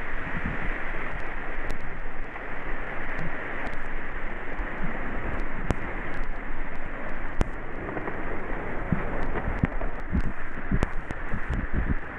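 Rushing whitewater of an artificial rapids channel, a steady wash of noise, with scattered small clicks and low thumps on the camera microphone that grow more frequent near the end.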